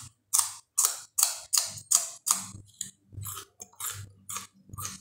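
A person chewing a mouthful of food close to the microphone, in even chews about two and a half a second, softer in the second half.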